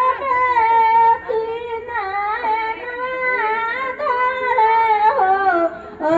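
Women singing a traditional wedding song unaccompanied, in long held, wavering notes; the singing drops away briefly near the end before the next line begins.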